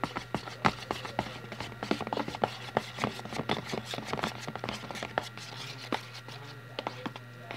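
Slime being stirred and worked in a clear plastic tub: a quick, irregular run of clicks, taps and scrapes against the plastic, over a steady low hum.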